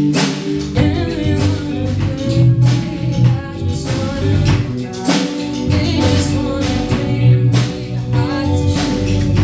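A live rock band: a female vocalist sings into a microphone over electric bass, electric guitar and drums. The vocal comes in two phrases, between a steady drum beat.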